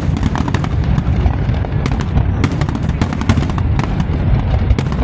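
Fireworks going off in rapid succession: a continuous low rumble of bursts with many sharp cracks and pops on top.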